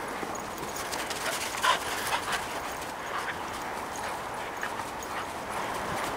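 Two dogs playing in snow, giving a cluster of short yelps and whimpers about one to two and a half seconds in, the loudest near the middle of that cluster, over a steady background hiss.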